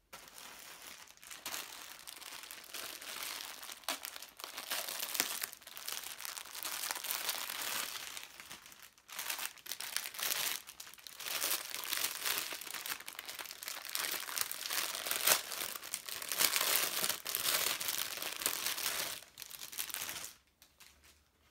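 Packaging crinkling and rustling in uneven surges as items are rummaged through and unwrapped by hand; it stops near the end.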